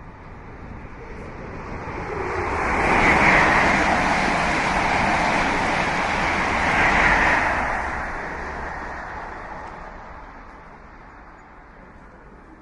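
A train passing a platform: a rushing, rumbling noise that builds over about three seconds, stays loud for about five seconds with two swells, then fades away.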